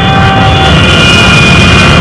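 A group of motorcycles riding past together, their engines running in a loud, continuous din, with a few held high tones over it.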